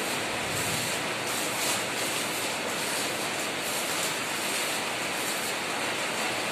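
Electric arc welding on a steel stair frame: the arc makes a steady hiss with no break.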